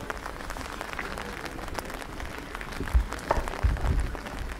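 Rain pattering, the drops making a dense, irregular ticking, with a few low thumps about three and four seconds in.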